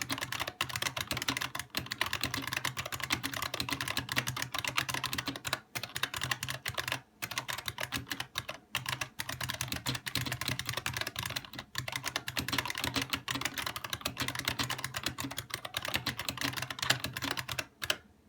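IBM Model M Space Saving Keyboard's buckling-spring keys typed on quickly and continuously, a dense run of sharp clicks with a few short pauses, stopping just before the end.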